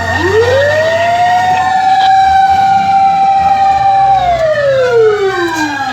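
Fire truck siren wailing. It climbs over about a second, holds a steady high tone for about three seconds, then falls away near the end, while a second siren at a higher pitch rises and falls across it. A low engine rumble runs underneath.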